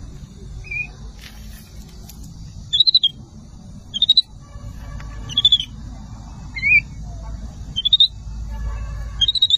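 Baby capuchin monkey giving short, high-pitched chirping calls, about half a dozen, roughly one a second.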